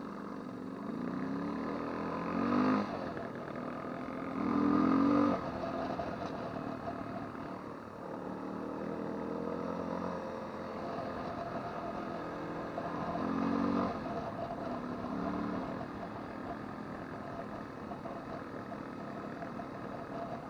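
Motorcycle engine running on the move. It rises in pitch and loudness several times as the throttle is opened, most strongly about two and a half, five and thirteen and a half seconds in.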